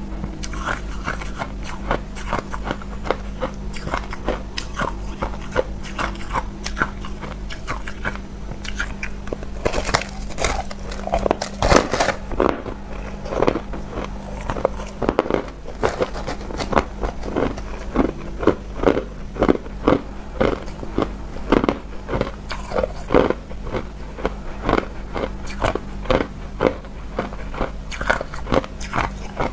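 A person biting and chewing a clump of frozen crushed ice: a dense, rapid run of crisp crunches, with the loudest bites about ten to twelve seconds in and again around fifteen seconds.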